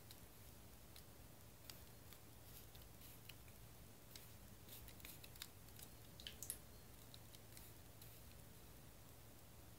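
Near silence with faint scattered clicks and light handling noises of small tools and model parts on a tabletop, a few slightly louder clicks about six and a half seconds in.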